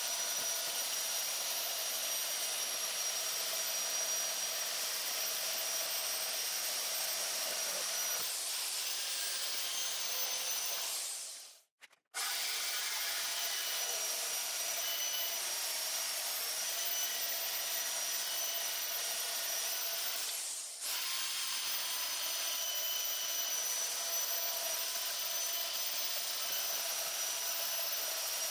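Wen portable band saw's motor running as its blade cuts through an aluminum wheel, a steady noisy grind with a constant whine. The sound cuts off abruptly for about half a second near the middle, then resumes and runs on with one brief dip.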